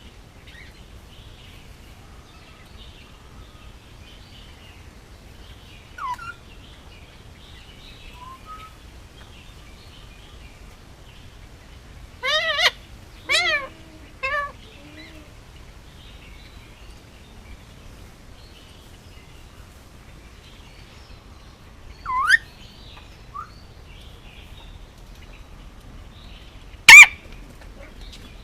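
Indian ringneck parakeet calling in scattered bursts: a few short rising calls, then a cluster of three harsh calls about halfway through. Near the end comes one short, sharp squawk, the loudest sound here. Faint high chirping runs underneath.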